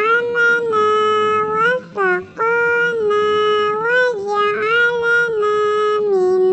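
A high-pitched, cat-like voice chanting in long, drawn-out held notes with brief breaks between them, in the manner of a cat 'reciting' the mealtime prayer.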